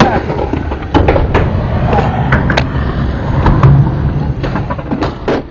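Skateboard wheels rolling over skatepark concrete, a steady low rumble, with several sharp clacks of boards along the way.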